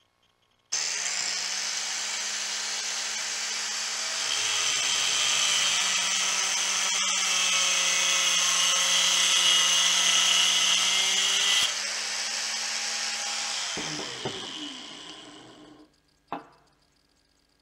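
Angle grinder switched on and cutting steel, almost certainly the shaft of the jigsaw's motor armature to free its gear. The cutting grows louder and harsher after about four seconds, eases off near twelve seconds, and the grinder then winds down with falling pitch. A single knock follows near the end.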